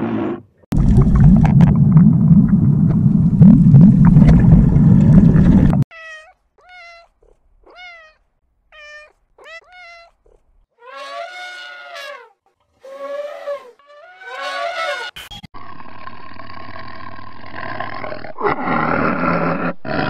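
A sequence of animal calls: first a loud, deep, rough roar lasting about five seconds, then a kitten mewing in short rising-and-falling calls about once a second, then longer, louder meows. Near the end comes a tiger's steady snarling growl.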